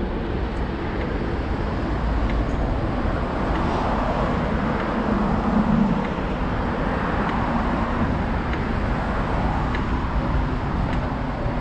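Steady road traffic noise from cars on the busy road beside the path, with a low wind rumble on the microphone of the moving bike's action camera; a car passing swells it slightly about five seconds in.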